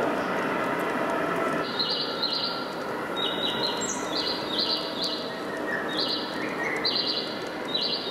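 LGB large-scale model train coaches rolling past along the track, with a run of short, high chirps repeating, mostly in pairs, from about two seconds in, like bird calls.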